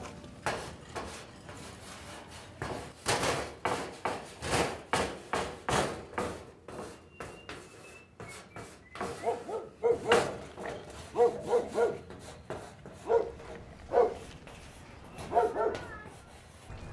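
Chalk being written on a blackboard, a quick run of short sharp scrapes in the first six seconds, followed from about nine seconds on by a dog barking, a string of short barks.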